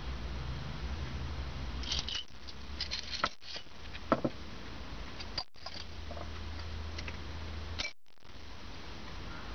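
Small steel press discs clicking and tapping against each other and the workbench as they are handled, a few light clicks with the sharpest about four seconds in, over a steady low hum.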